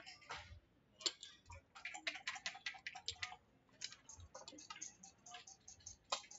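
Rapid clicks and clatter of backgammon dice and checkers on the board, densest about two seconds in, then scattered clicks as the pieces are moved.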